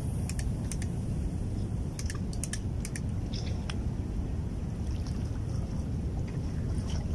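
Wind rumbling steadily on the microphone, with a scattered run of light clicks and ticks over the first few seconds.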